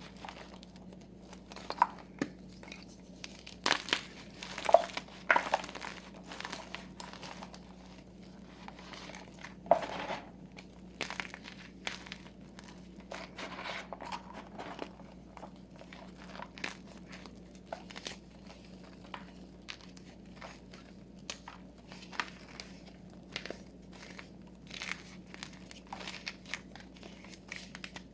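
Blocks of gym chalk being crushed and crumbled in the hands: irregular dry crunches and crackles, with a few louder crunches about five and ten seconds in.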